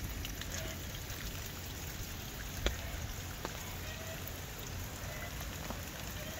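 Water pouring from the end of a hydraulic ram pump's half-inch PVC delivery pipe, splashing steadily onto stones and a shallow puddle, with a few sharp ticks.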